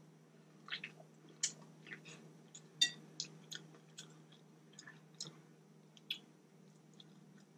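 Close-up chewing of saucy boiled vegetables, with wet smacking and clicking mouth sounds coming irregularly a few times a second over a faint steady hum.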